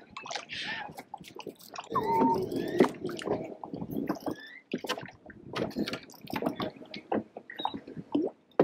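Water splashing and dripping, with scattered short clicks and knocks.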